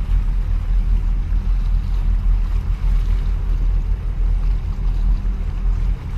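Wind buffeting the microphone as a steady, flickering low rumble, with harbour water washing against concrete tetrapods.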